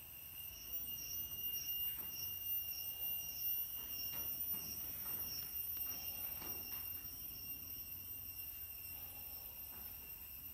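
Steady high-pitched ringing in several tones, one of them pulsing about three times a second, with a few faint light knocks.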